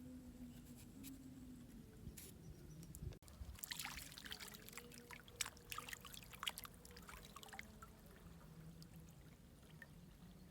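Faint trickling, pouring water, with a run of small splashes and crackles from about three to seven seconds in.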